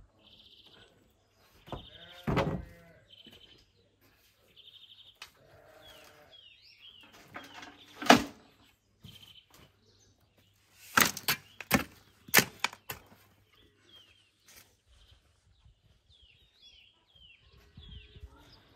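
Shovel and bucket knocks as soil and manure are loaded into plastic buckets: one loud thud about eight seconds in, then a cluster of sharp knocks a few seconds later. Small birds chirp throughout, and a farm animal calls once about two seconds in.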